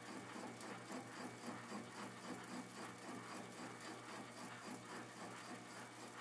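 Faint, even mechanical ticking about twice a second over a low steady hum.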